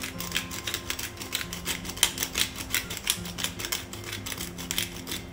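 Handheld pepper-and-salt grinder being twisted over and over, giving a fast, uneven run of dry grinding clicks.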